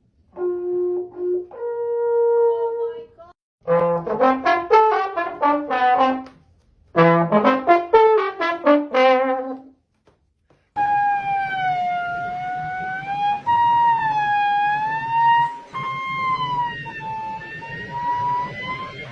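Brass-like sound-effect notes: two short held notes, then two quick runs of falling notes, then one long note with a slow wavering rise and fall near the end.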